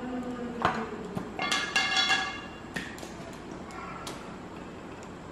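A stainless-steel bowl and wire grill rack clinking as marinated chicken pieces are lifted out and laid on the rack: several light knocks, some ringing on as metallic pings, in the first three seconds, and one more about four seconds in.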